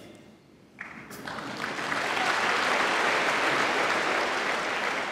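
Audience applauding, starting about a second in, building up and then slowly dying away.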